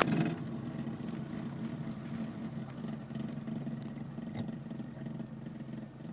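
Classic Mini's A-series engine running with a steady low drone, heard from inside the cabin as the car moves off on its newly repaired clutch. A sharp clunk comes right at the start.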